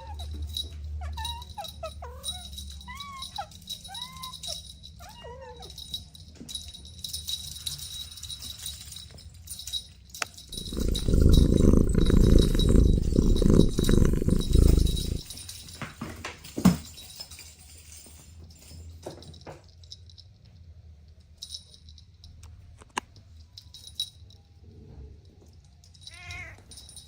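Kittens mewing, a run of short, high, rising-and-falling squeaks in the first few seconds. About ten seconds in, a loud low rumbling noise lasts about four seconds and then stops.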